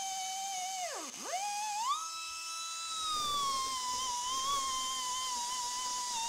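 Small high-speed grinder whining as it grinds out a crack in a cast iron steam chest casting. About a second in its pitch dives sharply as the bit bogs down in the cut, then it spins back up and settles into a slightly wavering whine as it bears on the metal.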